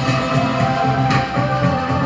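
Music with instruments, a song, playing steadily.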